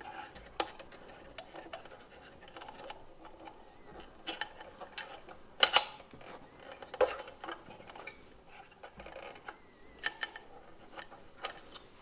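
Small clicks and scrapes of a model's screw-coupling parts being handled as the coupling spring is compressed and a retaining clip is pushed on, with a few sharper clicks, the loudest a little before halfway.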